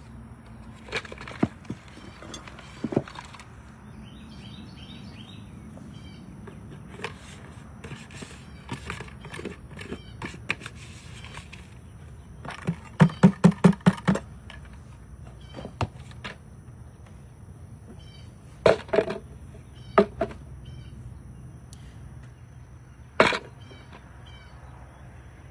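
Irregular knocks and thuds, with a quick run of about six thuds about halfway through and single loud knocks later; birds chirp faintly early on.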